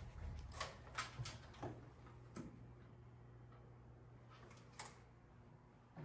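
Faint room tone with a low steady hum, and a few light clicks and knocks scattered through the first half and once more near the end.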